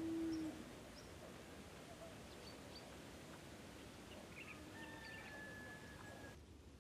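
Faint outdoor ambience: a low hiss with scattered short bird chirps, and a long, thin, steady whistled note near the end. A brief low hum sounds in the first half-second, and the ambience cuts off just before the end.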